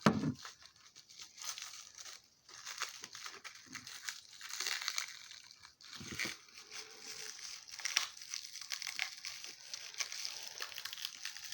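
Cellophane crinkling and crackling in irregular handfuls as it is peeled off a small two-piece glass dish, with a soft knock right at the start.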